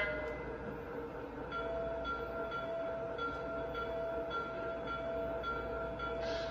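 Lionel Legacy S2 electric locomotive's onboard sound system ringing its bell, starting about a second and a half in and striking about twice a second, over a low steady hum.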